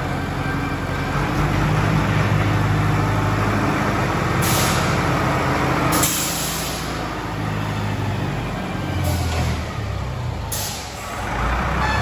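Tractor diesel engine running steadily with a low hum, joined twice by a hiss lasting a second or so.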